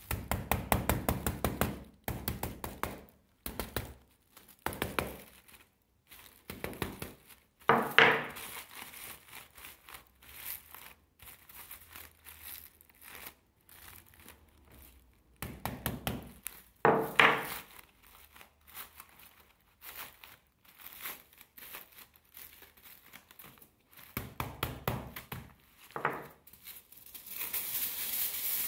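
Aluminium foil being crumpled and squeezed by hand into shape, crinkling and crackling in spells, with two louder knocks about eight and seventeen seconds in.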